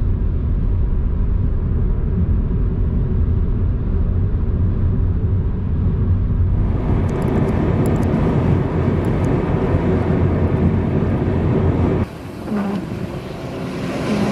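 Steady low rumble of a vehicle driving, heard from inside the vehicle. About seven seconds in it gives way to a brighter, hissing rush of noise, which drops in level near the end.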